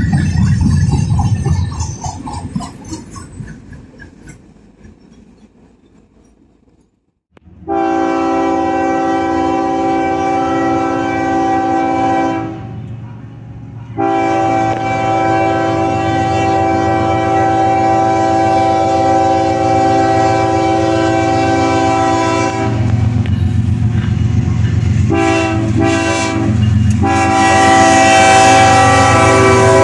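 Freight cars rolling past with rail clatter that fades away over several seconds; then, after a brief break, a locomotive's air horn sounds a chord in two long blasts, a shorter broken one and another long one, the grade-crossing warning, over the low rumble of the approaching diesel locomotive.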